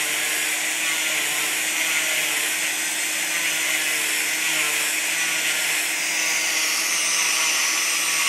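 Oscillating cast saw running steadily with its blade pressed into a fiberglass arm cast, cutting through it: a constant hum under an even high-pitched whir.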